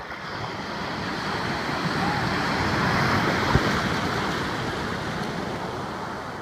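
Ocean wave breaking and washing through the shallows, its rushing surf swelling to a peak midway and then fading as the whitewater runs on. A brief sharp knock sounds at the loudest moment.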